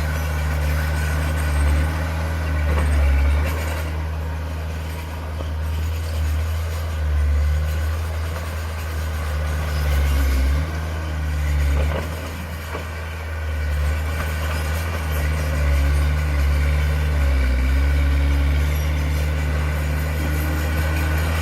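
Heavy diesel engine running steadily, with small rises and falls in its pitch.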